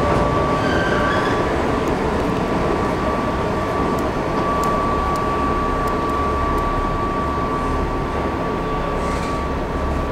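Pullman Standard R46 subway cars moving slowly through an underground station, wheels and running gear running steadily on the rails, with a steady high-pitched tone throughout and a few faint clicks.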